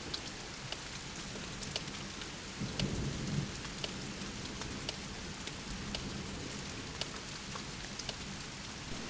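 Steady rain in a thunderstorm, with scattered drops tapping sharply on a hard surface and a brief low rumble of thunder about three seconds in.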